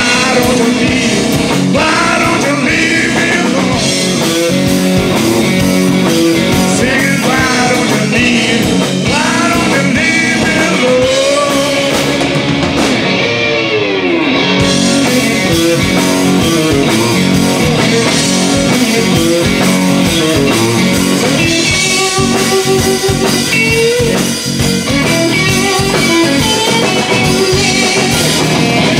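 Live blues-rock band playing: electric guitar, bass guitar and drums with a male lead vocal, the guitar bending notes.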